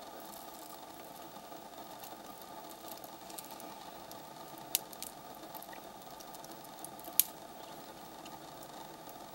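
African bush elephant chewing and breaking twigs and leaves: a run of crackling snaps and crunches, two of them sharp and loud, about halfway through and again a couple of seconds later, over a steady low hum.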